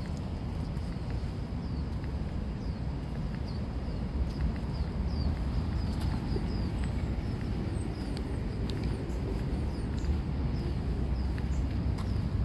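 Outdoor park ambience: small birds chirping over and over, with short high falling notes, above a steady low rumble.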